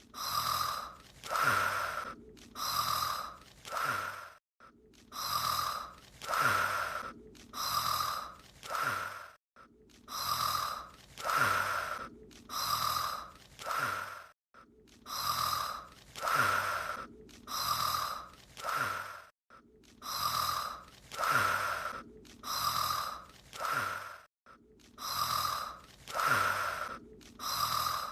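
Anime character's snoring sound effect, looped: light, breathy snore breaths in sets of four, the same set repeating about every five seconds with a brief silence where the loop restarts.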